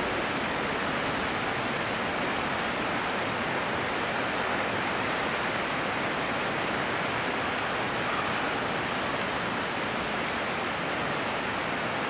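Steady rush of running water, an even hiss with no other sound standing out.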